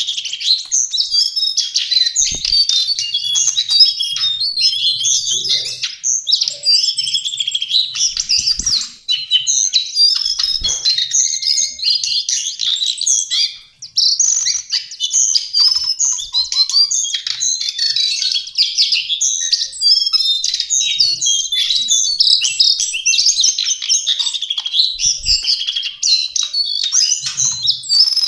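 Lesser shortwing (cingcoang coklat) singing continuously, a rapid jumble of high, quickly changing notes with only a brief pause about halfway through.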